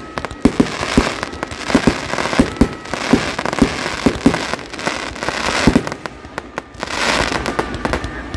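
Aerial fireworks display going off in a dense barrage: sharp booming shell bursts about two a second over continuous crackling.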